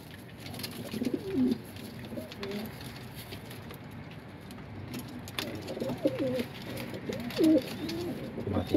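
Domestic pigeons cooing in a loft: several coos about a second in and a run of them from around six seconds on, while two pigeons fight in a nest box. Scattered short knocks and scuffles run under the calls.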